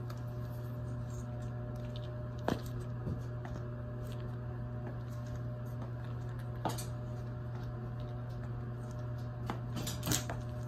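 Black platform heels with thick rubber-lugged soles knocking on a tiled floor in a few separate, spaced-out steps, the loudest near the end, over a steady low hum.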